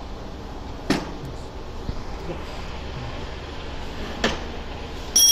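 Metal knocks from a spanner on the steel clamp nuts of a manual HDPE butt welding machine: two sharp knocks, about a second in and about four seconds in, then a loud ringing metallic clink near the end, over steady background noise.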